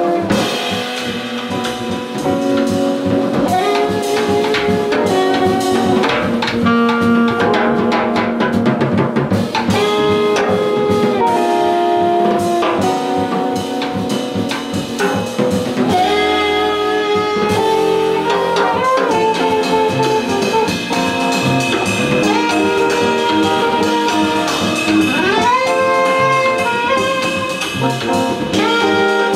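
Live jazz quartet playing: an alto saxophone carries the melody over electric guitar, double bass and drum kit. The sax line moves through phrases and slides up into notes a few times, with the drums keeping time on cymbals.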